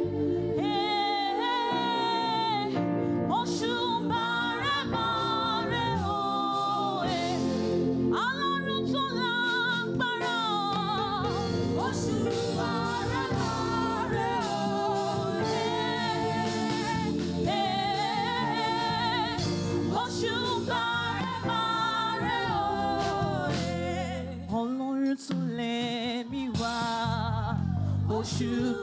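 Yoruba gospel praise song: voices singing together over steady percussion hits.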